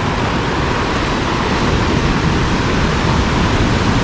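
Ocean surf washing in over shallow water: breaking waves and foam making a loud, steady rushing hiss.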